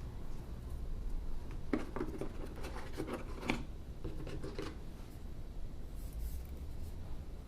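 Unboxing packaging handled by hand: paper, card or plastic rubbing and scraping in a run of short strokes from about two to five seconds in, with a few faint ticks later.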